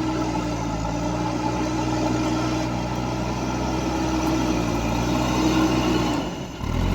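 Heavy diesel engine running steadily at a constant speed, with a brief drop in level near the end.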